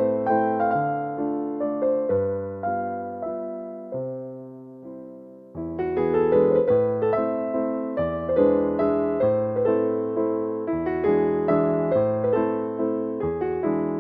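Background music: gentle keyboard piano playing, with a brief fade about four seconds in before the playing picks up again.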